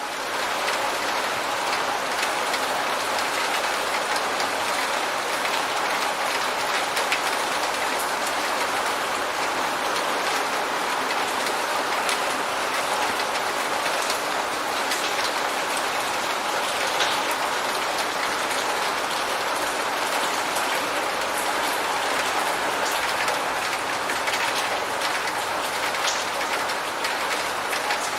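Steady heavy rain: a dense, even hiss of falling rain with many separate drops ticking on a hard surface.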